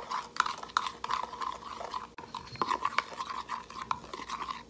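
Metal spoon stirring a seasoning mix in a small bowl, with quick scrapes and taps against the bowl, about three a second, and a short break about two seconds in.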